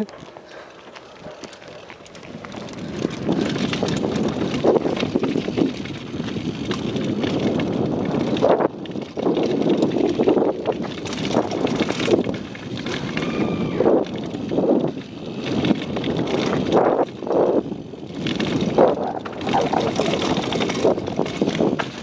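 Downhill mountain bike rolling fast over a dirt trail: tyres running over dirt and loose stones, the bike rattling over bumps in irregular knocks, and wind on the microphone. Fairly quiet at first, it grows much louder about three seconds in as the bike picks up speed.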